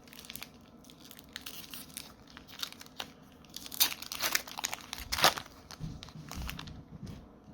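Foil wrapper of a Magic: The Gathering draft booster pack crinkling and tearing as it is opened by hand, in irregular crackles, the loudest about four and five seconds in.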